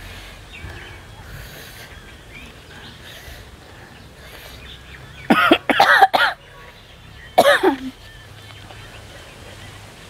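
A person coughing: a quick run of about three coughs about halfway through and one more a second later, their throat burning from eating a green chilli.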